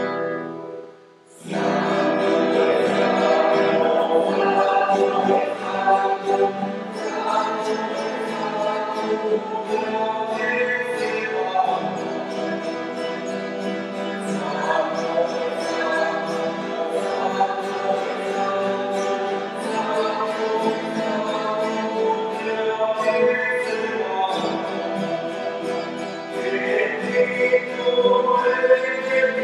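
A small group of voices singing a hymn to a strummed acoustic guitar, starting about a second in.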